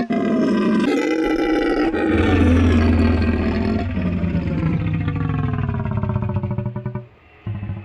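Monster roar sound effect made for Bagan, the cancelled Godzilla monster: a long, layered roar with a deep low rumble joining about a second in, falling in pitch through its second half and breaking off near the end.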